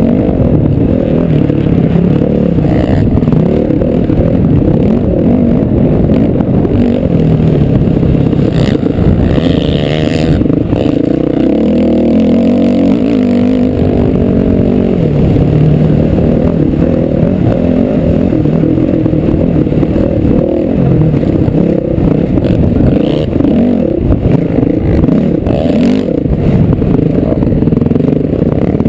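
Dirt bike engine running hard at race pace, its pitch rising and falling as the rider works the throttle, heard loud and close through a helmet-mounted camera's microphone.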